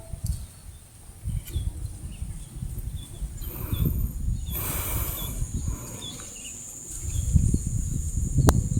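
Small birds chirping in short scattered notes over a steady high insect-like tone and a low rumbling noise, with a brief hiss about halfway through and a single sharp click near the end.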